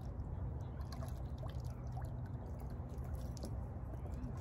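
Wet magnet-fishing rope being hauled up out of lake water, with faint scattered drips and small splashes over a steady low rumble.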